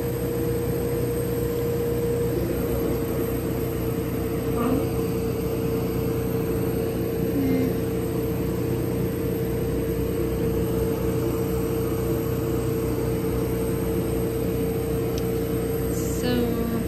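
Gweike Cloud desktop laser cutter running with a steady electric hum from its fans and air assist, with a few short whirs as the laser head travels to trace the framing outline over the sheet without cutting.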